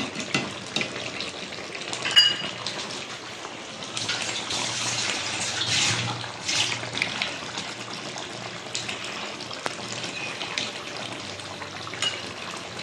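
Chicken curry bubbling and sizzling in a metal pan while a spatula stirs it, scraping the pan, with a few sharp knocks of the spatula against the metal.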